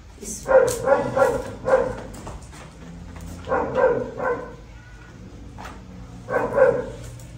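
A dog barking in three quick runs of barks: about a second in, near the middle, and again near the end.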